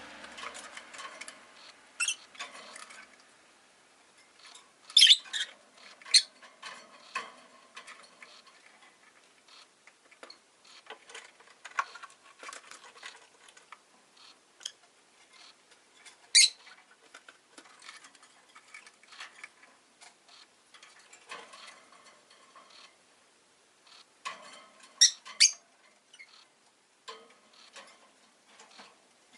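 Rosy-faced lovebird giving short, sharp high chirps now and then, loudest around five seconds in, at sixteen seconds and twice near twenty-five seconds, among many faint clicks and ticks.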